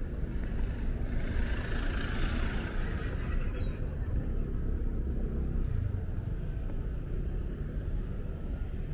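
City street traffic: a steady low rumble of cars, with one vehicle passing close by about two seconds in.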